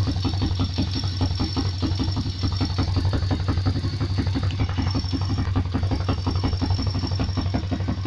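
Pit bike's single-cylinder engine running steadily, with a constant rustling, metallic noise from inside the engine that the owner cannot place.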